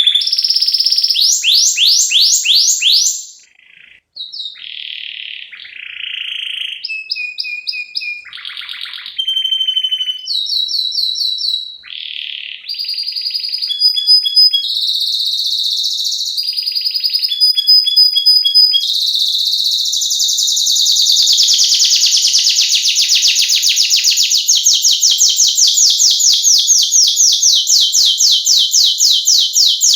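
Canary singing a long, varied song. It moves through a string of quick trills and repeated notes, each phrase a second or two long, then past the middle settles into one long, fast, even roll.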